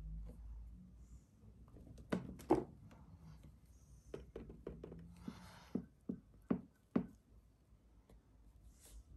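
A scattered series of light knocks and taps on a hard surface, the loudest two close together about two seconds in, with a short rustle in the middle.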